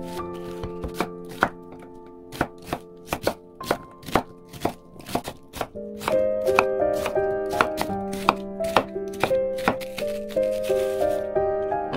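Chef's knife chopping onion on a wooden cutting board: a series of sharp, irregular knocks, a couple or more a second, with the blade going on to slice green onion near the end. Background music with held notes plays underneath.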